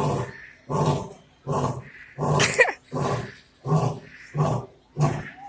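Lion roaring: a steady series of deep, rough grunting calls, about one every two-thirds of a second. One call about halfway through is louder and harsher.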